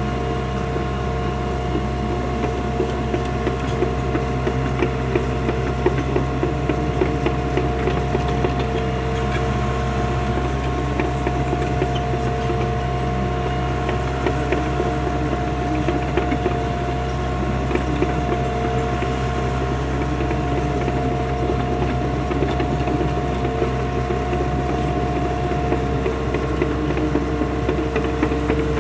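Mini excavator's diesel engine running steadily under work, with a steady whine and frequent short knocks and clanks throughout.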